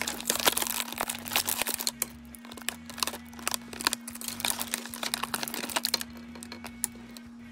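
Clear plastic blister packaging crinkling and crackling in a rapid run of small clicks as doll figures and accessories are pushed out of their moulded slots, with a short lull about six seconds in.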